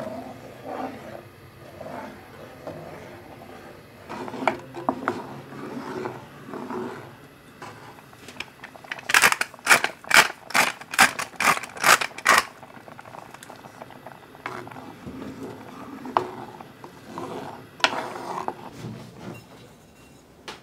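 Wooden spatula stirring and scraping soup in a cast-iron pot, then a salt grinder turned in a quick run of about a dozen crisp clicks over three seconds as the soup is seasoned. A few lighter knocks near the end.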